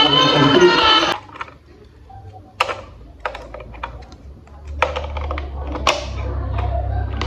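Background music cuts off about a second in, followed by scattered light clicks and taps of plastic toy train parts being handled and fitted together. A low steady hum comes in about halfway through.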